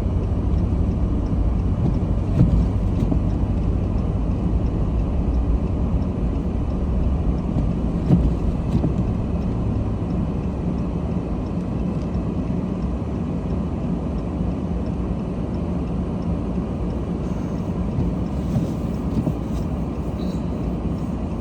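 Steady low drone of a car driving, with engine and road noise heard from inside the cabin. There are two small knocks, at about two and a half seconds and again at about eight seconds.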